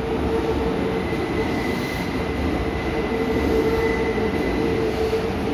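Kintetsu 80000 series 'Hinotori' limited express electric train running into an underground station platform: a steady rumble and hum from the passing cars, with a thin high wheel squeal through the middle.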